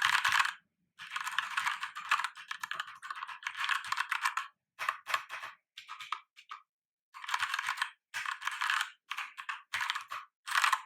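Typing on a Keychron K4 mechanical keyboard with brown (tactile) switches: runs of rapid key clacks broken by short pauses.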